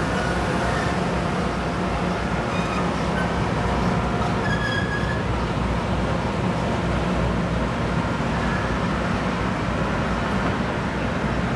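Norfolk Southern passenger cars rolling slowly past on the rails, a steady low rumble with several short, thin high-pitched squeals from the cars' running gear.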